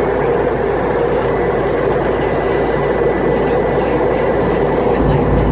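Steady cabin noise of an airliner in flight, engine and airflow heard from inside the passenger cabin, with a faint high steady tone; a deeper rumble comes in near the end.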